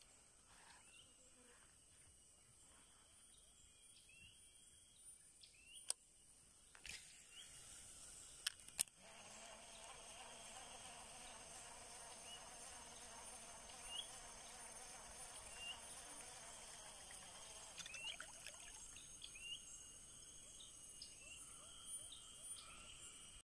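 Faint lakeside ambience: a steady high insect drone, with short rising bird chirps every second or two and a few sharp clicks.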